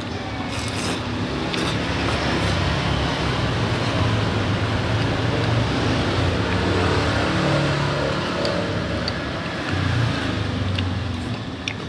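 A motor vehicle's engine running close by and passing, building up about a second in, strongest through the middle and fading near the end. A few light clinks of a spoon on a bowl come through.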